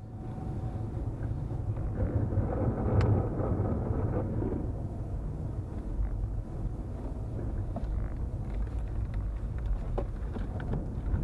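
Steady low rumble of a car's tyres and engine heard from inside the cabin while driving on a snow-covered road, with a couple of faint clicks near the end.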